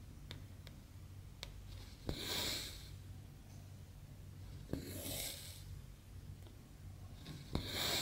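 Needle popping through 14-count Aida cross-stitch fabric and embroidery floss drawn through it with a short rasping swish, three times about two and a half seconds apart.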